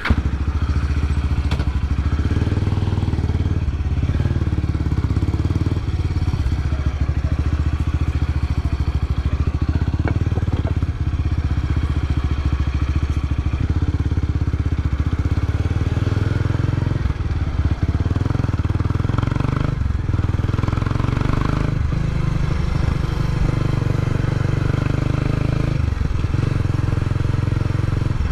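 Kawasaki Estrella BJ250A's four-stroke single-cylinder engine running steadily as the motorcycle rides off, with a few brief dips in the exhaust note along the way.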